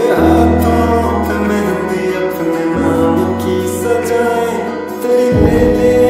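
Background music with a steady melody over held bass notes; the bass note changes twice.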